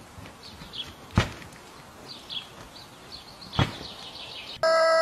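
Black rams head-butting: two sharp thuds about two and a half seconds apart, over birds chirping in the background. Near the end, a loud steady electronic tone starts abruptly.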